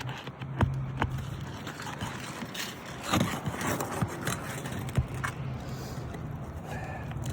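Scraping and crackling of an old, brittle asphalt shingle being pried up to reach its nails, with a few sharp clicks. A steady low hum runs underneath.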